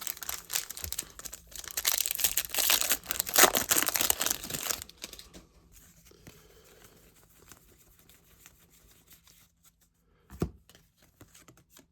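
A foil trading-card pack wrapper being torn open and crinkled, loudest over the first five seconds, then fainter rustling, with a single sharp knock about ten and a half seconds in.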